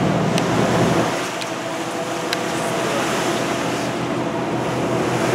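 Tour boat underway: a steady engine hum under a haze of wind and water noise.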